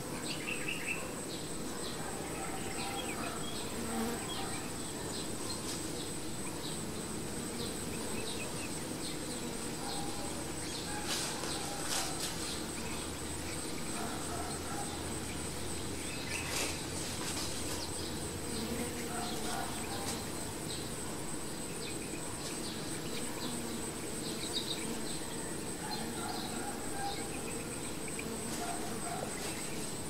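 A honey bee swarm cluster buzzing, the steady hum of many bees at once. A thin, steady high-pitched whine sits above the hum, with scattered short faint chirps.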